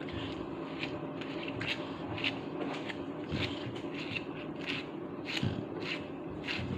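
A pet brush stroking through a chow chow's thick coat: short scratchy brushing strokes, about two a second.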